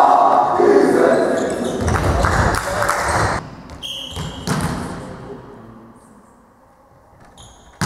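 Players' shouts and calls ring out in a reverberant sports hall between volleyball rallies, stopping abruptly about three and a half seconds in. A short referee's whistle blast follows, then it goes quiet until a sharp smack near the end as the serve is struck.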